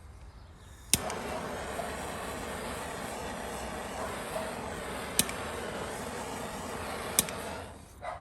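A butane torch lighter clicks on and gives a steady hissing flame, used to burn the cut ends of seatbelt webbing so they won't fray. The igniter clicks twice more as it burns, and the flame dies away near the end.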